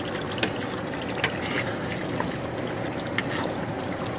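Pot of pondu (cassava leaves) bubbling at a steady boil in a steel pot while a spoon stirs it, with a few sharp clicks.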